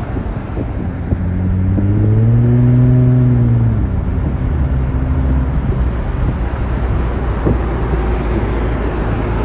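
A car engine revs up and then eases back, from about one second in to about four seconds in. It sits over the steady low rumble of engines and tyres from cars driving along together.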